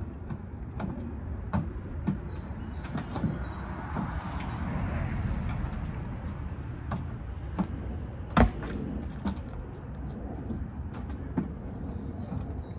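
Knocks and thuds of cherry log rounds being handled in a pickup truck bed and tossed down onto the log pile, a dozen or so scattered knocks with one heavy thud a little past halfway.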